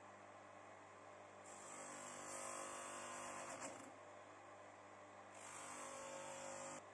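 Ingco electric motor with a sanding disc on its shaft, running with a steady hum. Steel hacksaw parts are pressed against the spinning disc twice, giving a hissing grind from about a second and a half in to about four seconds, and again from about five and a half seconds to near the end.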